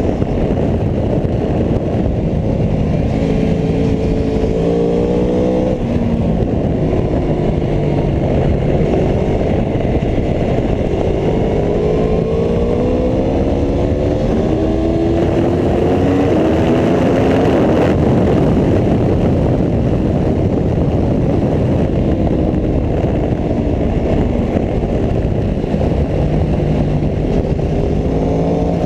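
Aprilia Tuono V4 1100 RR's V4 engine pulling hard, its pitch rising through several gears and dropping at each shift, with steadier stretches between, under a constant rush of wind noise.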